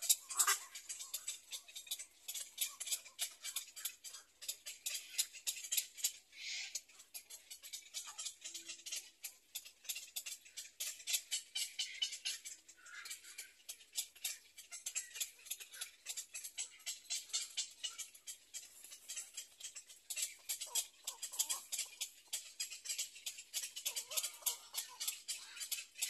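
Black-crowned night heron nestlings giving a rapid, high-pitched ticking chatter, the begging call of chicks at the nest, uneven in loudness and continuous.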